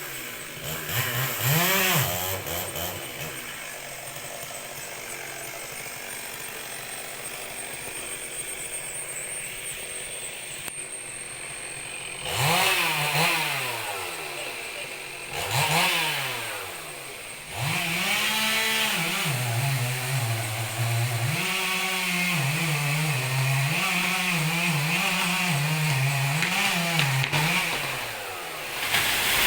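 Chainsaw engine revved up and down over and over, with a steadier, quieter stretch in between and quick repeated throttle blips near the end.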